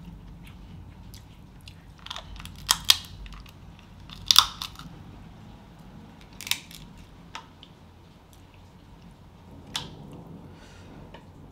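Boiled Dungeness crab leg shells being cracked apart by hand: a handful of sharp, separate cracks and crunches, the loudest about three and four seconds in.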